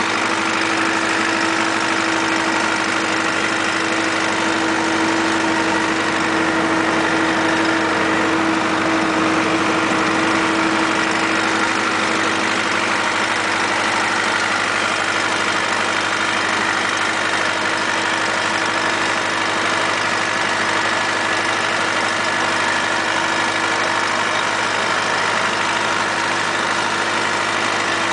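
Zetor tractor's diesel engine running steadily under way, heard from the driver's seat right beside the upright exhaust stack.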